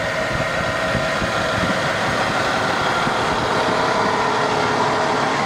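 Large diesel-pusher motorhome engine idling steadily, a continuous rumble with a steady whine running over it.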